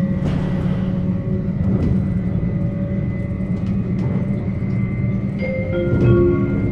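Electric passenger train running, heard from inside the carriage: a steady low rumble from the wheels and running gear with a faint steady whine above it. Near the end, several short steady tones at different pitches come in briefly.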